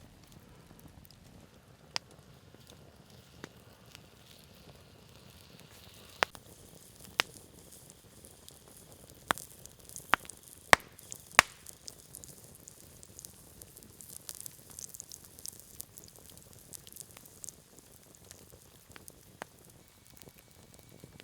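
Wood campfire crackling, with scattered sharp pops and a cluster of loud ones about halfway through, over a faint hiss.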